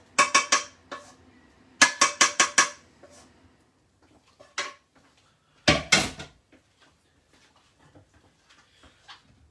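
Metal kitchen utensils clinking against cookware. Two quick runs of taps come in the first three seconds, then a single clink, and a heavier clatter about six seconds in.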